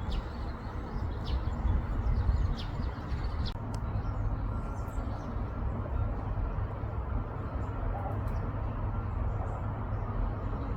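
A bird calling with short, quick chirps in the first few seconds and a few fainter ones later, over a steady low rumble.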